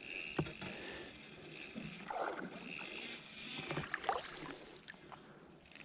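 Quiet sounds on a small fishing boat: faint water and hiss, with a few light knocks about half a second in and around four seconds in.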